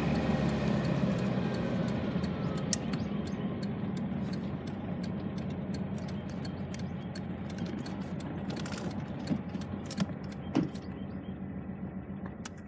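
The 1964 cabriolet's engine running at low speed and slowly quieting as the car rolls slowly over gravel, the tyres crunching with many small sharp clicks and pops. The engine cuts off at the very end.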